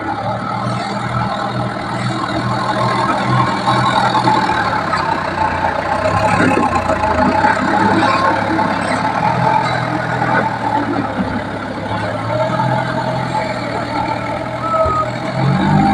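Heavy diesel engine of a teak-log hauling machine running under load, its engine note shifting up and down several times as it works.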